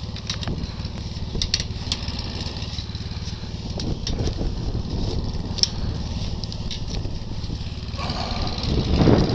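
ATV engine idling steadily, with sharp metallic clicks and scrapes as a barbed-wire fence gate is worked loose by hand.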